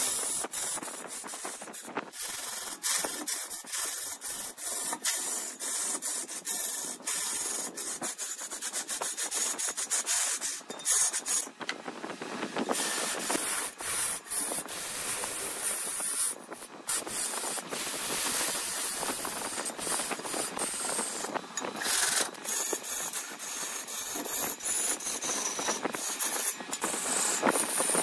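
Wood spinning on a lathe being scraped: a continuous, rough, uneven scraping hiss, with a couple of brief breaks partway through.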